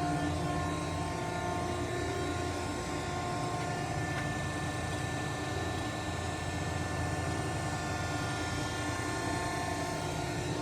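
JARBE 22"x160" universal cylindrical grinder running under power: a steady machine hum with several steady whining tones over it.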